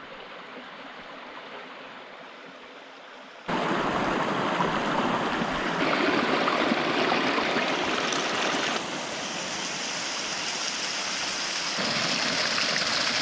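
Steady rush of a mountain stream. It is softer at first, jumps much louder about three and a half seconds in, then shifts abruptly in level and tone a few more times, as if between different stretches of water.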